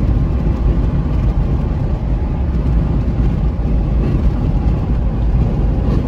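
Steady low rumble of road and engine noise inside a car's cabin cruising at highway speed.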